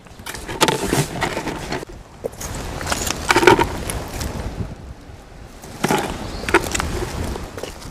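Clams being gathered on a stony shore: hard clicks and clatters of shell against stone and shell, in three short bursts. Near the end, clams are dropped into a plastic bucket of other clams.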